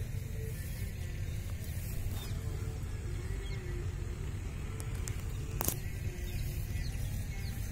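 Outdoor ambience: a steady low rumble with faint bird chirps, and one sharp click about five and a half seconds in.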